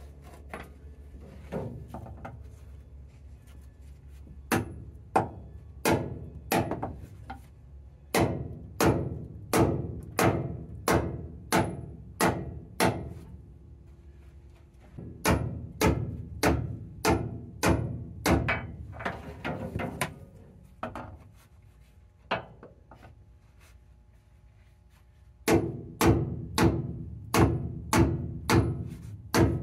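A hammer striking metal under the tender in three runs of steady blows, about two a second. Each blow rings briefly.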